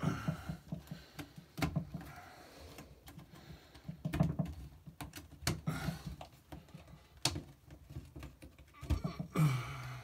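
Rubber door gasket of a washing machine being pulled and pressed by hand onto the rim of the drum opening: irregular clicks, taps and rubbery rubbing and squeaks as the seal is worked into place.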